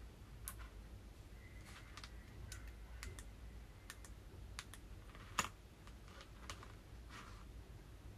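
Faint, scattered plastic clicks and taps as a hand handles a two-pin Motorola-plug acoustic-tube radio earpiece, pressing its push-to-talk box and clip and moving the cable on the table. One sharper click comes about five seconds in.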